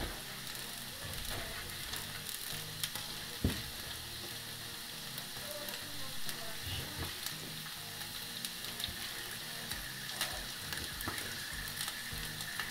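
Chopped onions frying in a pan, a steady sizzle, with scattered knife knocks on a wooden cutting board as raw veal is sliced; one sharper knock about three and a half seconds in.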